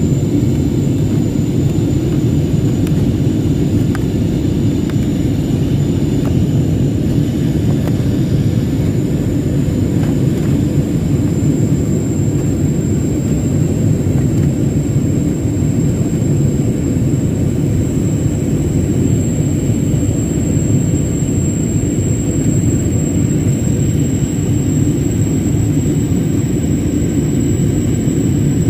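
Steady cabin noise inside a jet airliner in flight: a loud, even low rumble of engines and airflow, with a thin high steady whine over it.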